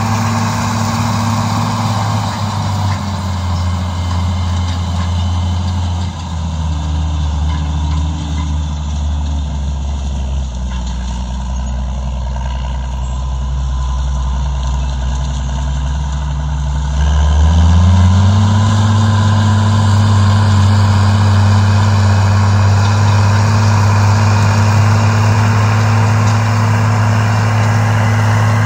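Case IH 9130 tractor's diesel engine running steadily as it pulls a tillage implement. Its pitch drops about three seconds in and again around six seconds, then rises back up and grows louder at about seventeen seconds.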